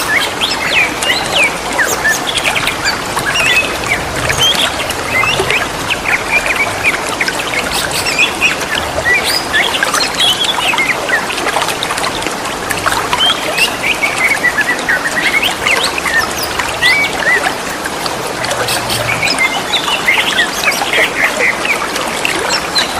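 Green leafbirds (cucak ijo) calling back and forth in quick chirps and warbling notes, over a steady trickle of running water.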